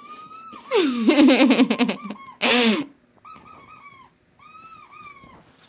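Squeaky dog toy sound effect played back: high rubbery squeaks in short runs, each rising and falling slightly in pitch. About a second in, a louder voice-like sound with falling pitch covers the squeaks for a couple of seconds.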